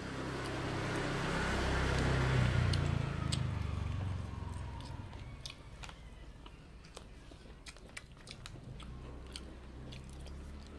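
People eating noodles with chopsticks and a spoon: soft chewing and scattered small clicks. A low rumble swells and fades over the first four seconds and is the loudest sound.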